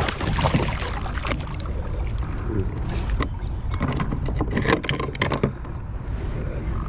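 Hooked gar being brought alongside a kayak to be released: splashing and irregular knocks and clicks against the kayak, with a sharp knock at the start and a flurry of knocks about five seconds in.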